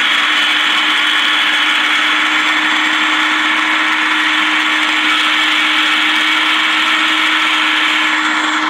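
Electric food processor running steadily, its blade chopping a kebab mince mixture in the plastic bowl, with an even motor hum.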